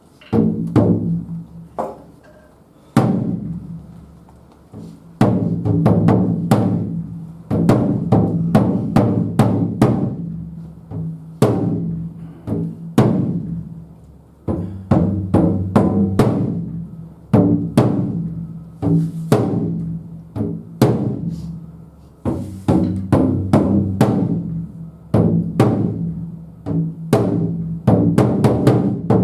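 Japanese taiko drums played by an ensemble: heavy strikes on deep drums that ring on after each hit, mixed with sharp, high clicks. The drumming starts suddenly and goes in phrases of quick strikes broken by short gaps.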